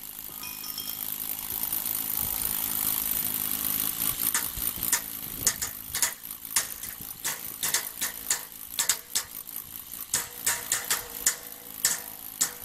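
Hammers striking a galvanized steel floor channel: sharp metallic knocks, several a second and irregular, from about four seconds in. Before them, a steady hiss grows louder.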